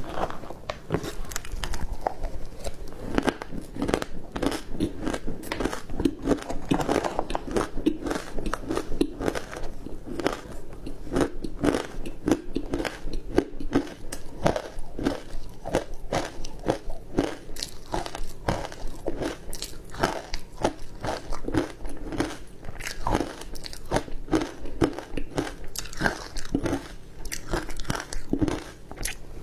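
A person biting and chewing ice, with continuous crunching made of many sharp cracks in quick, irregular succession.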